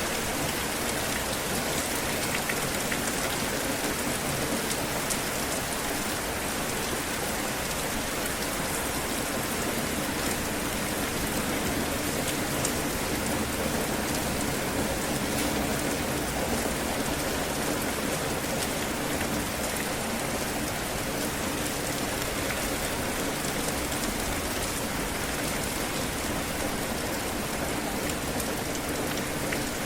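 Steady heavy rain falling and pattering on surfaces, an even hiss with scattered drop ticks.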